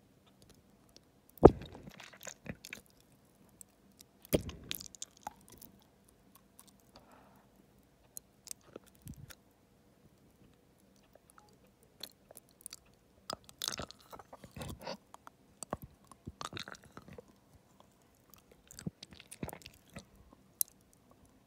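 Close-miked wet mouth sounds: scattered saliva and tongue clicks and gulps as a gummy candy is held on the tongue and swallowed. Two louder thumps come about one and a half and four and a half seconds in, and clicks bunch up again in the second half.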